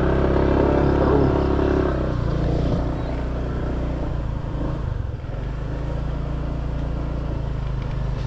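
Motorcycle engine running steadily as the bike is ridden, with a brief dip in level about five seconds in.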